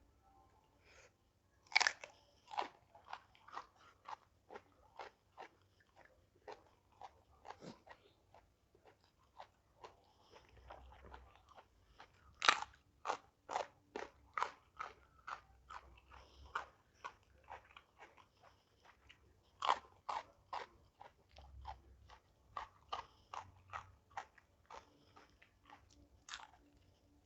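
A person biting into and chewing crunchy raw vegetables (lalapan): four loud crisp bites, each followed by a run of crunching chews about two a second.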